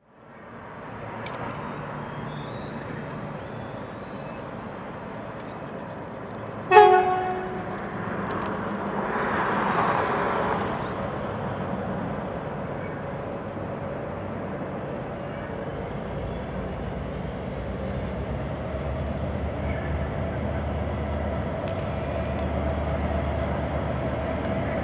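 Approaching diesel freight locomotive: a low engine rumble that grows slightly louder toward the end, and one short horn blast about seven seconds in.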